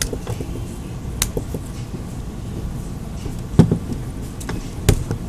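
Plastic clicks and snaps from a pick being worked into the seam of a smartphone's back housing to pry it off and release its clips. Four sharp clicks, the loudest about three and a half seconds in, over a steady low hum.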